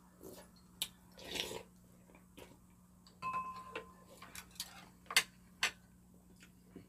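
Chopsticks and a spoon clicking and scraping against ceramic bowls in a string of irregular taps, with eating noises in between. About three seconds in, one tap leaves a short ringing note.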